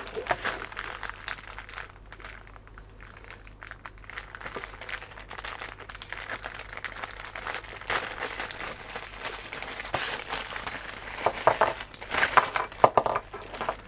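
Clear plastic packaging bag crinkling as it is handled and opened, in irregular rustles that grow busier near the end.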